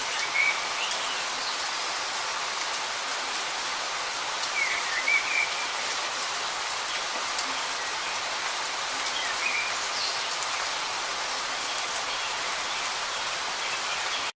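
Light rain falling steadily, an even hiss of drops. A bird chirps briefly a few times over it.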